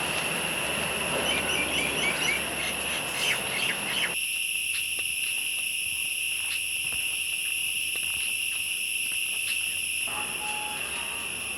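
Insects shrilling steadily in one unbroken high-pitched note. A broad background rush sits under it for the first four seconds and cuts off suddenly, and a short run of quick chirps comes between one and three seconds in.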